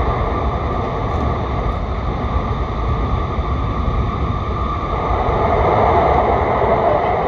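Interior running noise of a West Kyushu Shinkansen N700S train at speed: a steady low rumble and rushing noise, swelling slightly about five seconds in.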